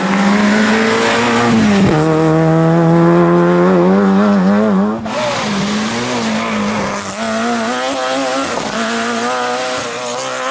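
Peugeot 106 rally car engine at high revs as it passes, with a sharp dip in pitch about two seconds in before it pulls again. After a break about halfway, another rally car's engine rises and falls as it drives a forest stage.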